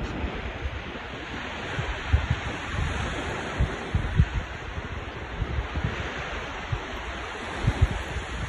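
Surf washing in over a sandy beach, with gusts of wind buffeting the microphone.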